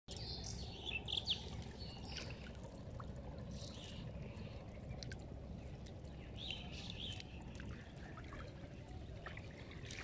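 Outdoor river ambience: a steady low rush with water trickling, and birds chirping a few times.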